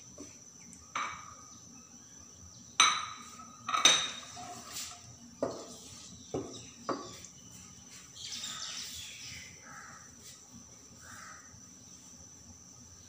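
A slotted spatula knocking and scraping against a non-stick wok while cumin seeds are stirred in hot oil: several sharp knocks in the first seven seconds, the loudest two near three and four seconds in, then a short stretch of softer scraping.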